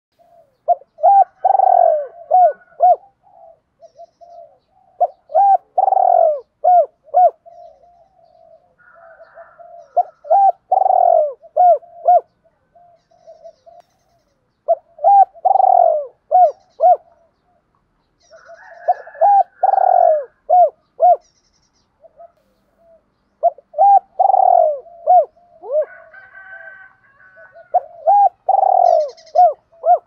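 Spotted dove cooing its calling song: a phrase of several low coos, one longer, stronger note followed by a few short ones, repeated seven times, about every four to five seconds.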